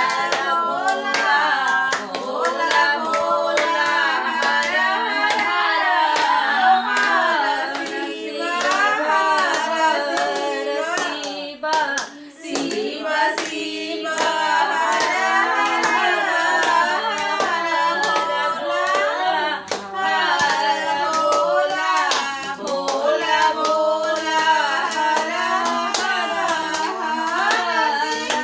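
A small group of women singing a devotional song together and clapping their hands along with it, with a short break in the singing about halfway through.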